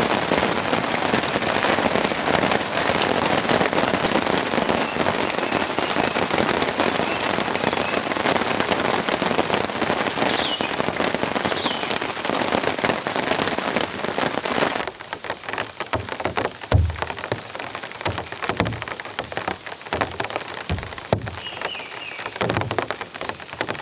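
Heavy rain falling in a steady dense hiss; about two-thirds of the way through it drops suddenly to a lighter patter with separate heavy drops knocking down close by.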